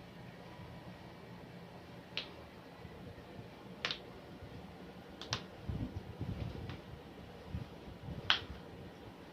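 A handful of sharp, brief cracks over a quiet room, including a quick pair about five seconds in: joints popping during a chiropractic adjustment and stretch. Duller low thuds of the body shifting come in between the later cracks.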